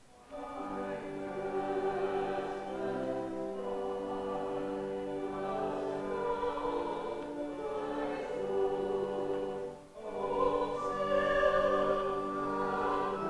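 Small church choir singing a slow hymn anthem in sustained, held notes. The singing begins just after a short silence, and the choir breaks briefly for breath about ten seconds in before going on.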